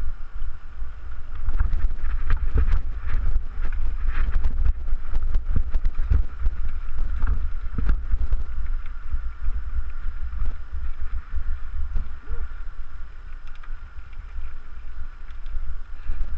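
Wind buffeting the microphone of a bike-mounted camera on a mountain-bike descent, with frequent rattles and knocks from the bike jolting over rocky trail.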